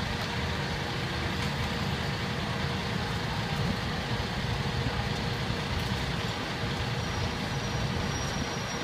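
A double-decker diesel coach idling steadily with a low, even rumble.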